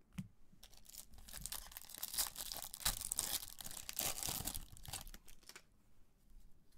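Foil wrapper of a 2020 Bowman Draft baseball card pack being torn open and crinkled, a dense crackling rustle that dies down about five and a half seconds in.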